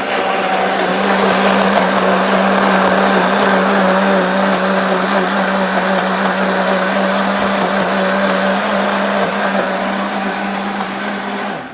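Kitchen blender motor running steadily at speed, churning liquid and the shredded remains of a toy, then switched off near the end, the sound dropping away suddenly.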